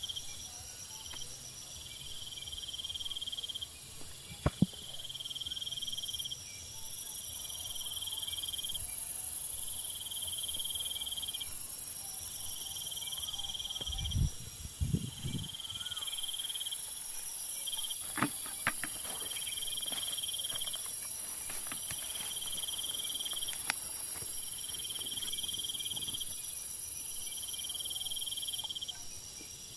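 Insects chirping: one shrill chirp comes in bursts of a second or two, repeating every two to three seconds, over a steady high hiss. A few thumps and rustles come through the middle.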